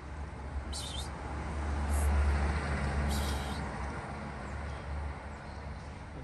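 A motor vehicle passing along the street: a low engine and tyre rumble that swells to its loudest about two seconds in and slowly fades, with a few short high hisses in the first three seconds.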